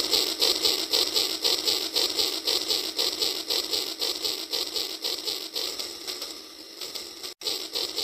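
Toy train locomotive running along its track: a rapid, even clicking rattle from its small motor and gearing, growing fainter as it moves away, with a brief break near the end.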